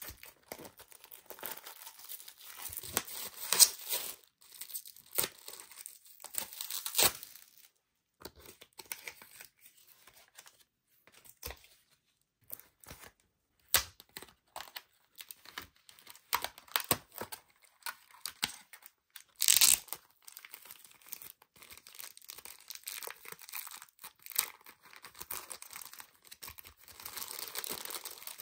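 Clear plastic wrapping being peeled and torn off by hand: irregular crinkling and crackling with a few louder sharp snaps. Near the end, a clear plastic bag is handled, with denser, steadier crinkling.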